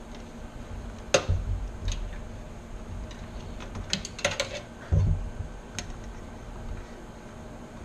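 Light clicks and clatter of small hard parts being handled, with a quick run of clicks about four seconds in and a dull knock just after, over a steady low hum.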